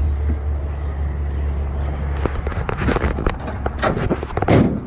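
Clicks and rattles of a plastic dog crate's wire door being worked open on a pickup truck's bed, loudest near the end, over a low steady rumble.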